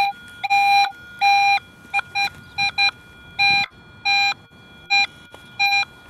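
Nokta Makro Legend metal detector giving its target tone as the coil sweeps over a buried nickel test target. It sounds as about ten beeps of the same mid pitch, some short and some longer, at an uneven spacing that follows the passes of the coil.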